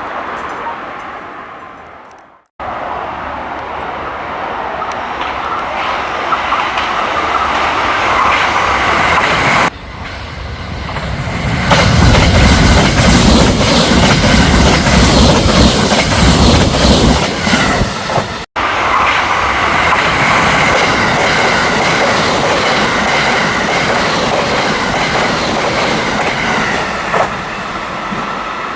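A 681-series limited express electric train passes at high speed, its wheels running on the rails. The sound builds over several seconds and is loudest about halfway through, heaviest in the low end as the cars go by. Before it, in the first two seconds, the sound of an earlier train fades out.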